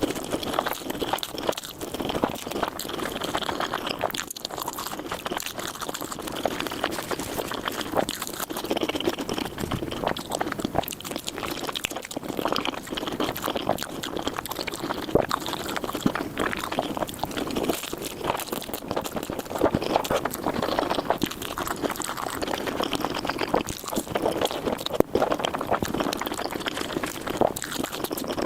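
Close-miked eating of noodles in big bites, with wet chewing and slurping as a dense run of quick clicks, sped up to four times normal speed.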